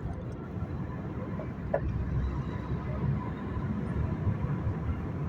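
A car driving along, heard as a steady low rumble of engine and road noise.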